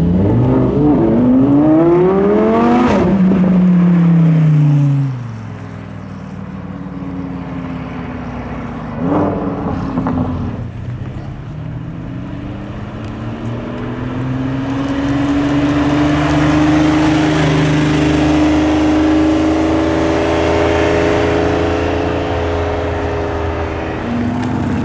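Car engines revving at a car meet. One car's engine climbs sharply in pitch and then drops away about three seconds in, and later another engine note rises slowly and steadily as a car accelerates for about ten seconds.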